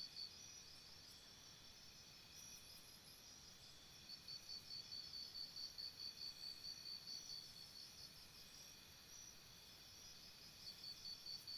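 Crickets chirping faintly. One cricket's high, evenly repeated chirps stop just after the start, resume about four seconds in, pause again around eight seconds and return near the end, while other crickets chirp more softly behind it.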